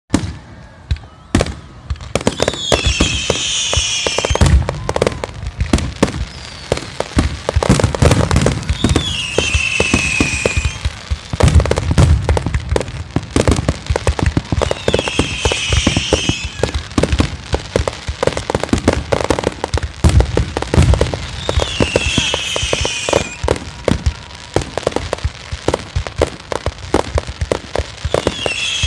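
A fireworks display with many shells going off: dense, rapid bangs and crackling with no let-up. A high falling whistle comes back about every six seconds.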